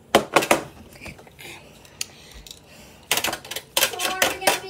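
Children's voices close to a phone microphone, mixed with sharp clicks and rustling as the phone is handled and fabric brushes against it.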